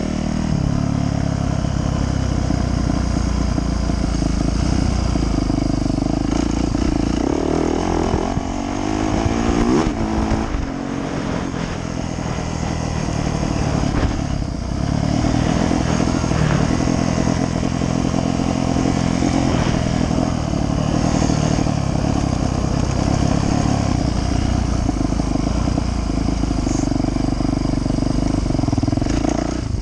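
Yamaha YZ450F dirt bike's four-stroke single-cylinder engine running under riding load, its revs rising and falling with the throttle, most clearly between about 7 and 10 seconds in.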